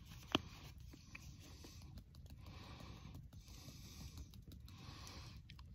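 A small hand pepper grinder being twisted, giving a faint rasping grind in several short stretches, with one sharp click just after the start.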